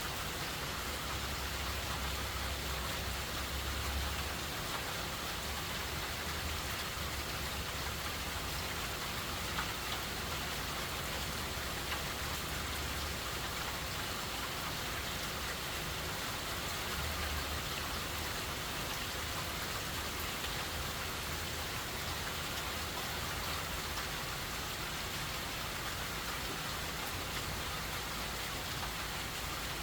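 Steady hurricane rain pouring down as an even hiss, with a few single drop ticks. A low rumble swells in and out underneath during the first half.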